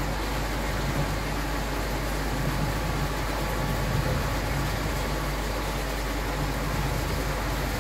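Steady machine hum with a constant hiss.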